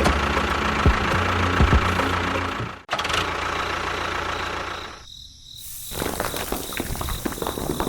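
Engine-like running sound: a steady low drone with a rattle. It cuts off abruptly about three seconds in, dips briefly around five seconds, then carries on with more rattling.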